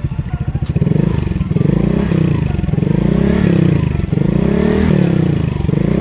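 Honda Click Game Changer scooter's single-cylinder four-stroke engine, breathing through an aftermarket Akrapovic slip-on exhaust. It idles, then from about a second in is revved several times, each rev rising and falling back. It sounds very loud.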